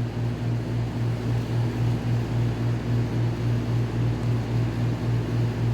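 Steady low machine hum that pulses evenly a few times a second.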